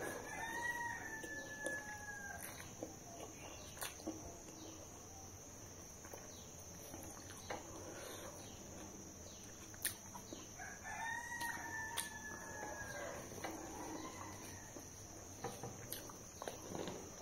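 A rooster crowing faintly, twice: two long, slightly falling calls about two seconds each, some eight seconds apart. Soft scattered clicks of eating by hand sound in between.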